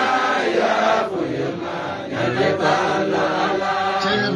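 Men's voices chanting an Islamic devotional song together, the sustained melodic lines of a group chant led over a microphone.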